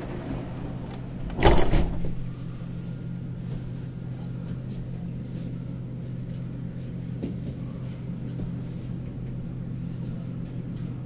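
Saarbahn tram door closing with a loud clunk about a second and a half in, over the tram's steady low hum.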